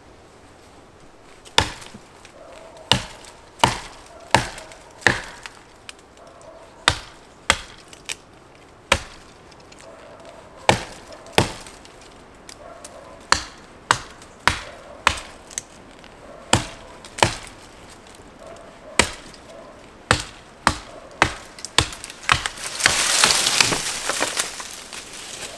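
Hatchet chopping into a sapling near its base: about twenty sharp single blows, roughly one a second. Near the end the cut sapling falls through the surrounding branches with a loud rustle.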